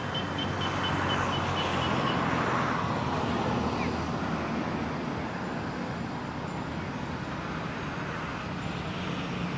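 Steady outdoor background noise with a low engine hum, like traffic on a nearby road, swelling for a couple of seconds near the start as a vehicle goes by. Over it, a high ticking call repeats about four times a second and fades out about two seconds in.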